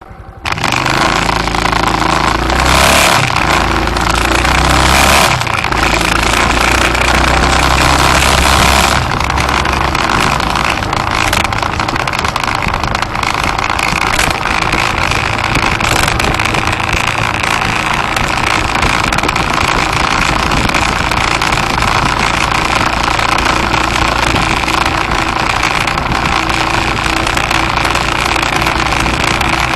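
A vehicle on the move: steady engine and road noise heard from on board, a little louder during the first nine seconds.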